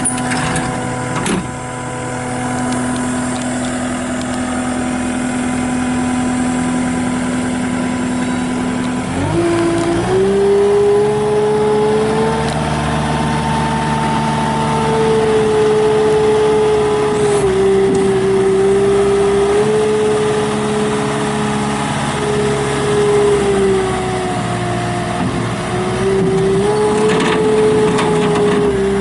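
2019 Kubota SSV65 skid steer's diesel engine idling steadily, then throttled up about nine seconds in and running at high revs, its pitch dipping and rising a little.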